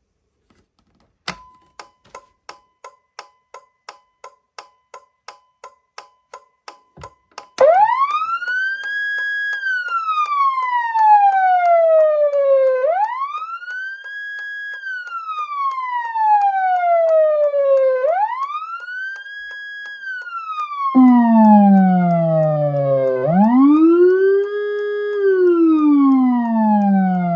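Short ticking beeps, about three a second, then an electronic siren wail that rises, holds and falls on a cycle of about five seconds. Later a Federal Signal Rumbler 2 low-frequency siren joins through a woofer as a deep tone sweeping up and down under the faster-cycling wail.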